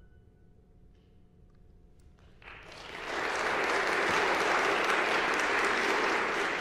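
A very soft, held clarinet note fades out about two seconds in. Then an audience breaks into applause, swelling within a second and carrying on steadily.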